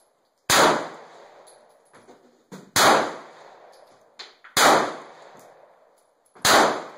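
Heckler & Koch P7 9mm pistol firing four single shots, roughly two seconds apart, each followed by a short echoing decay.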